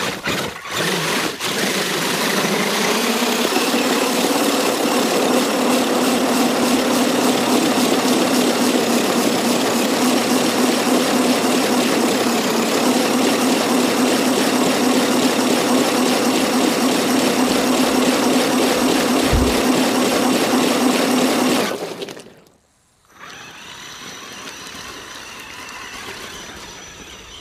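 RC monster truck's motor whining at a steady pitch as it churns through a shallow icy creek, with water spraying around it. The sound cuts off abruptly a little over 20 seconds in, and a much quieter steady sound follows.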